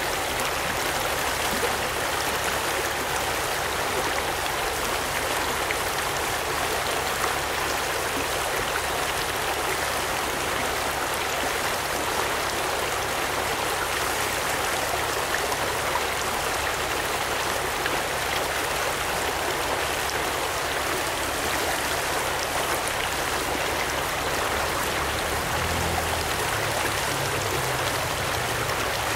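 Shallow rocky trout stream flowing steadily over riffles and pocket water, a constant even wash of water noise.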